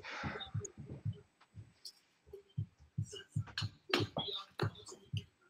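A quick, irregular run of soft low thumps, with a few sharp clicks in between.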